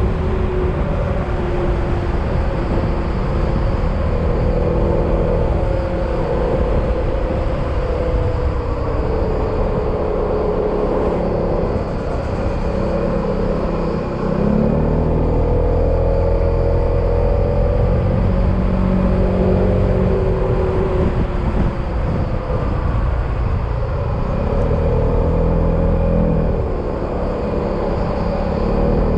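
Yamaha XMAX maxi-scooter's single-cylinder engine running while riding, its pitch dropping and then climbing again twice as the speed changes, over a steady rush of wind and road noise.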